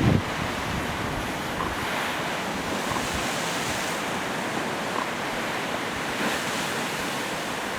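Lake Ontario waves washing in steadily, with wind.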